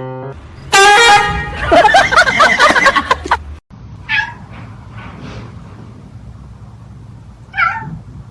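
Cat meowing loudly: one long, steady, high call, then a wavering, warbling yowl. After a short break come two shorter meows a few seconds apart.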